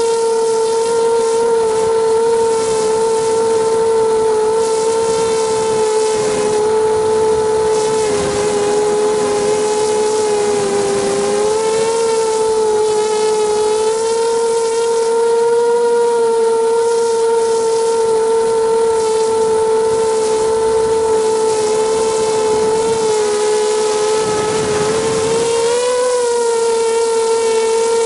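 ZMR250 250-size quadcopter's brushless motors and propellers whining steadily, heard close up from the camera on the quad's frame. The pitch dips slightly about a third of the way in and rises briefly near the end as the throttle changes.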